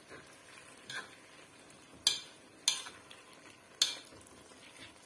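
Metal spoon spreading raw rice in a kazan: soft scraping of the rice, with the spoon clinking sharply against the pot about four times.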